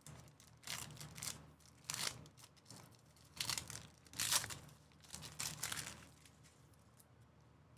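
Crinkling and rustling of trading-card pack wrappers and plastic sleeves being handled, in several short bursts about a second apart.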